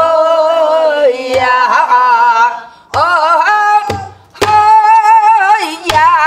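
A woman singing Korean Namdo folk song in long phrases with heavy wavering vibrato, accompanied by low strokes on a buk barrel drum, about one at the start of each phrase.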